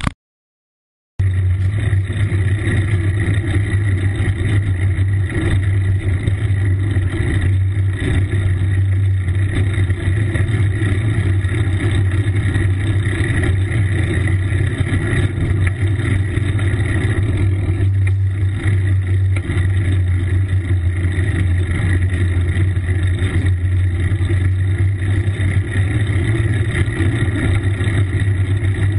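Steady rumbling wind and road noise on a camera riding with a bicycle along a paved road, starting about a second in after a short silent gap.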